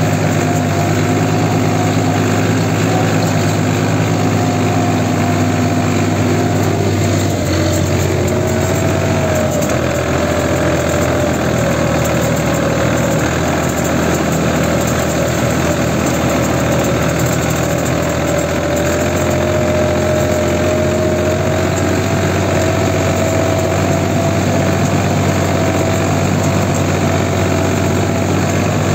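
New Holland 54C tractor's diesel engine running steadily as the tractor drives through snow, with a whining tone above the engine note that dips slightly about eight to ten seconds in.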